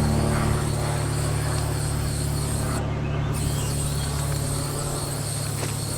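A steady low engine drone that slowly gets quieter, over a faint hiss.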